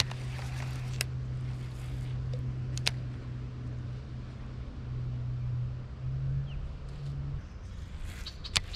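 Bass boat's electric trolling motor humming steadily at a low pitch, stepping up slightly about six seconds in and shutting off a second or so later. A few faint sharp clicks sound over it.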